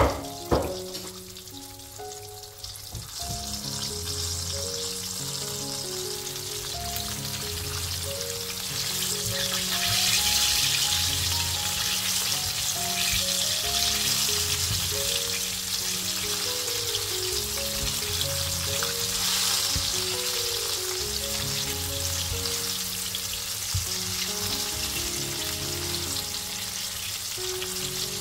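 Chicken wings deep-frying in hot oil in a wok: a steady sizzle of bubbling oil that grows louder through the middle, with two sharp clicks at the very start.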